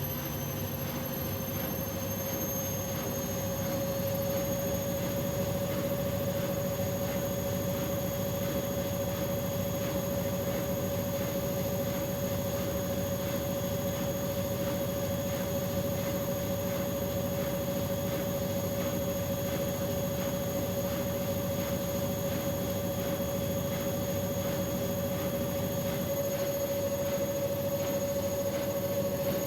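Bosch Maxx front-loading washing machine on its spin cycle, in an extra-spin programme capped at 800 rpm. Its motor whine climbs slightly in pitch over the first few seconds as the drum speeds up, then holds steady.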